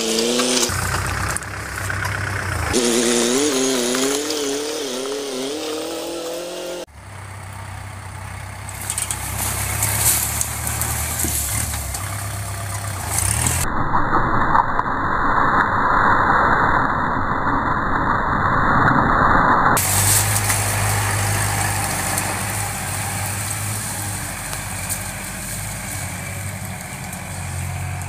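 Kubota L5018 tractor's diesel engine running steadily while working. Over the first several seconds a wavering tone rises and falls over it. The sound changes abruptly about seven seconds in and again at about 14 and 20 seconds.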